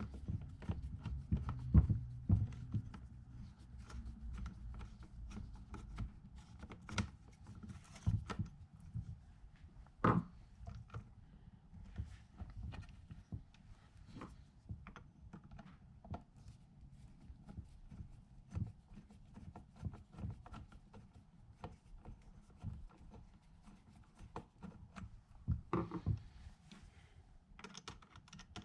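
Scattered clicks and knocks of door knob hardware being handled and fitted, metal and wood parts tapping together, with a few louder knocks.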